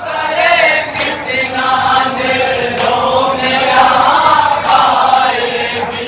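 Group of men chanting a nauha in chorus, a lead voice with the group, punctuated three times by sharp slaps of matam chest-beating about two seconds apart.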